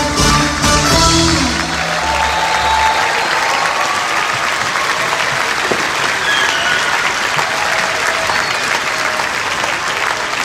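Recorded circus show music breaks off in the first couple of seconds, and a large audience applauds steadily for the rest of the time.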